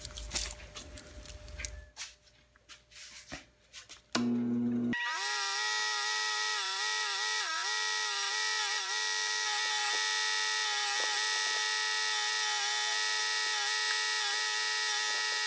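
Rusty caliper parts clicking as they are handled, then a motor-driven wire wheel starts about four seconds in and runs steadily at high speed, its pitch dipping briefly several times under load as the rust is brushed off.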